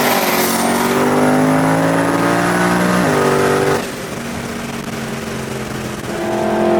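Twin-turbo Ford Mustang's Coyote 5.0 V8 pulling hard under boost, its note climbing steadily with a high whine over it. About three seconds in the pitch steps down at a gear change. Then the throttle lifts and the engine falls to a quieter, rougher run before it picks up again near the end.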